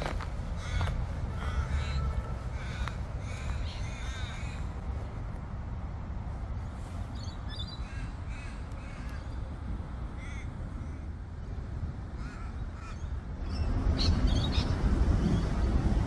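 Crow-like birds cawing again and again, with other short bird calls mixed in. Under them is a low rumble that grows louder near the end.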